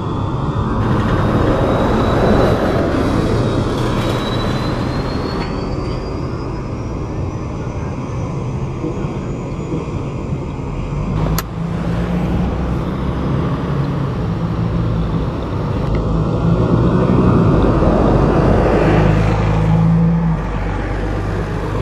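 Alexander Dennis Enviro 500 Hybrid double-decker bus pulling away and passing close, its electric drive whine rising steadily in pitch over the first several seconds over tyre and engine noise. After a sudden cut about halfway, a bus engine runs with a steady low drone that grows louder near the end.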